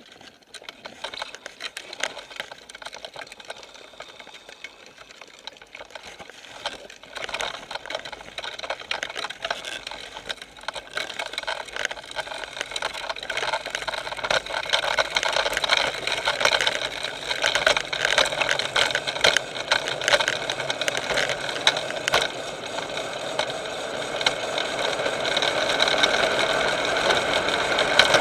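Drift trike rolling down an asphalt road: a fast, crackling rattle from the wheels and frame on the tarmac, growing steadily louder as the trike gathers speed.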